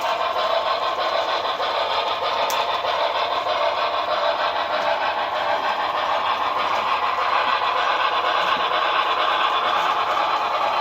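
Onboard sound of a Broadway Limited Imports Paragon4 HO scale New York Central Hudson steam locomotive, running steadily under throttle as it climbs a grade, with one sharp tick about two and a half seconds in.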